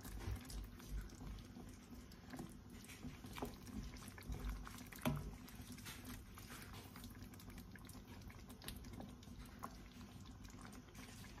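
Wooden spoon stirring a thick pork-and-vegetable tomato stew (menudo) in a pan on the stove: soft, irregular clicks and knocks of the spoon against the pan and the chunks, over the faint bubbling of the simmering sauce.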